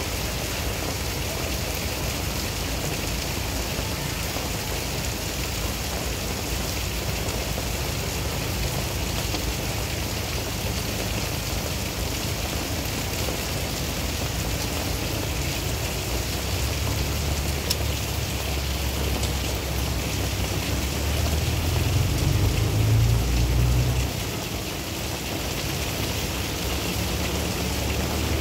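Steady heavy rain falling on a wet paved road and pavement, an even hiss. In the second half a low rumble builds up, is loudest about three quarters of the way through, then drops off suddenly.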